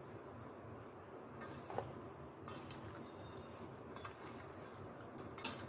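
Faint kitchen handling sounds: soft squishing and a few light clinks of a dish as raw fish pieces coated in turmeric and salt are handled.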